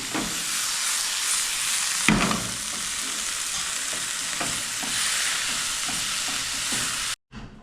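Scrambled eggs sizzling in an oiled frying pan as a spatula stirs and scrapes them, with scattered light clicks and one sharper knock about two seconds in. The sizzle cuts off abruptly near the end.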